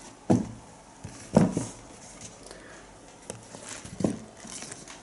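A few brief knocks and taps from a sneaker being handled, the loudest about a second and a half in.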